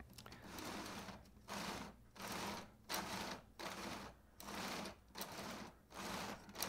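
A row of meshed 3D-printed plastic helical gear cups, each spinning on a 608ZZ skateboard bearing, turned by hand from one end. The gear teeth run against each other in about eight short bursts of noise, one for each twist of the hand.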